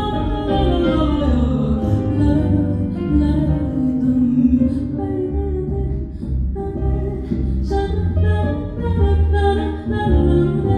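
Live song performance: a woman singing with instrumental accompaniment, her voice gliding between notes over steady low accompaniment.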